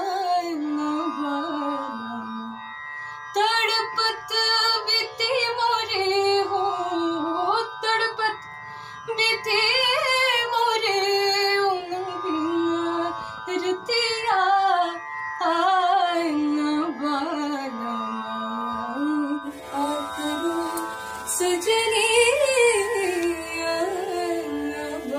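Indian classical music: a female voice singing a gliding, ornamented melody over a steady drone, with tabla strokes. About twenty seconds in the sound changes, with a brighter hiss behind the music.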